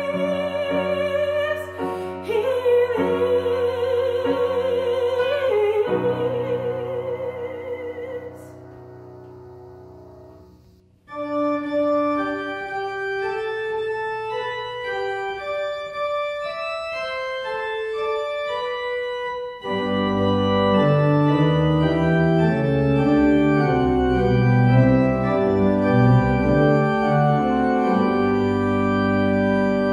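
A woman sings a solo with wide vibrato over piano accompaniment, her last note ending about six seconds in and the piano chord dying away by about ten seconds. Then an organ begins a hymn introduction, playing quietly at first and much fuller, with low bass notes, from about twenty seconds in.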